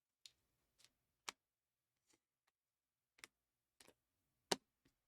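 Trading cards being handled on a table: about nine short, sharp clicks and taps, irregularly spaced, the loudest about four and a half seconds in.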